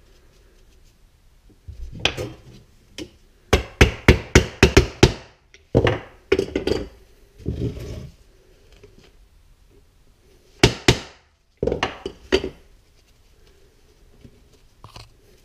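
Sharp wooden knocks and taps from hand tools and wood pieces on a wooden workbench: a quick run of about seven knocks around four seconds in, then scattered groups of knocks.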